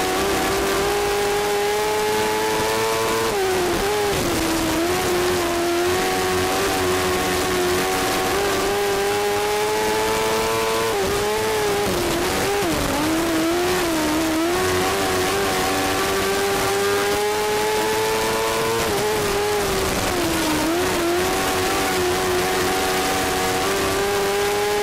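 A 1000cc micro sprint car's engine running hard as the car laps, heard close from the cockpit: its pitch climbs steadily for several seconds at a time, then drops and wavers briefly, three times over. A steady rush of wind and track noise lies under it.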